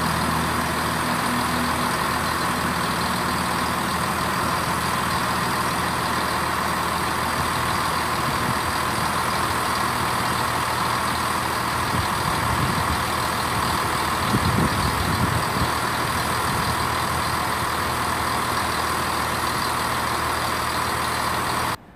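Class 220 Voyager diesel multiple unit pulling away, its engine note fading within the first couple of seconds. After that a steady rushing noise carries on until it cuts off suddenly near the end.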